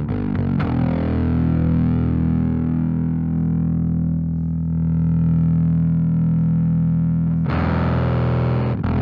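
Bass played through a vintage Fender Blender fuzz pedal: a fuzzed note held and sustaining while a knob on the pedal is turned, its top end dulling away, then turning abruptly bright and buzzy again about seven and a half seconds in.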